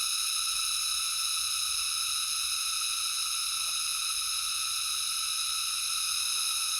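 Steady, even hiss with no distinct events, and only a few faint brief sounds partway through and near the end.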